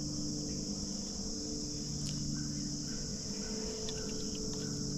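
Steady insect chorus, a high, even buzzing, over a faint low steady hum.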